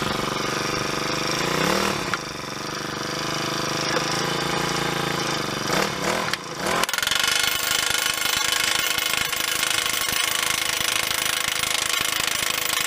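Four-stroke gas-powered post driver running and hammering a post, a fast steady pounding over its engine. The note shifts about two seconds in and again about seven seconds in.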